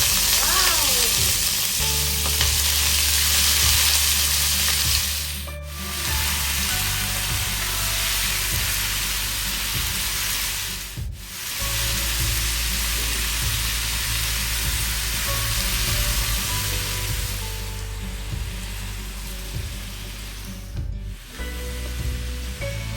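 Chicken frying in hot oil in a pan: a loud, steady sizzle while it is stirred. The sizzle drops out briefly three times.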